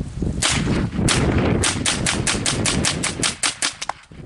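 Ruger 10/22 semi-automatic rimfire rifle fired rapidly: two single shots, then a fast, even string of about fifteen shots at roughly six or seven a second, stopping shortly before the end.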